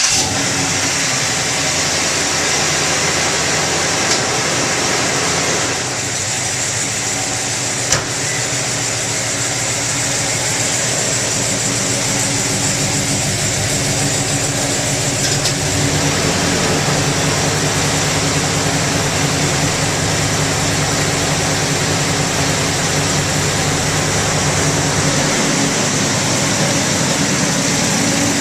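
1971 Chevrolet Monte Carlo SS's 454 big-block V8 running steadily, which the owner says is running a little rich. Two short sharp clicks about four and eight seconds in.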